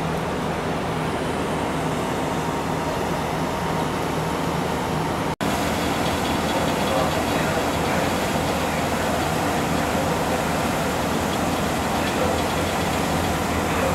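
Heartland Ferry's engines running with a steady low drone, under the rushing of the churning wake water. A momentary break comes about five seconds in, and afterwards the water rush is a little stronger.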